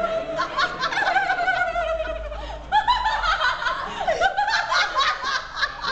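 Two people laughing hard together in quick, high-pitched pulses. The laughter dips briefly about two and a half seconds in, then breaks out again.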